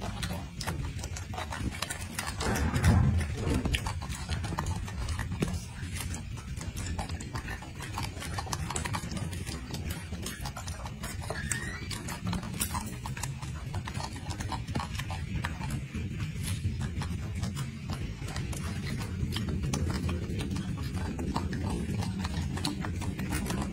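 Golden snub-nosed monkey eating a piece of orange close to the microphone: many small wet clicks and smacks of chewing. A low rumble runs underneath, loudest about three seconds in.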